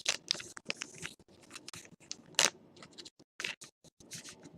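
Baseball trading cards being handled and slid against one another: a run of short, irregular scrapes and flicks, with one sharper, louder flick about two and a half seconds in.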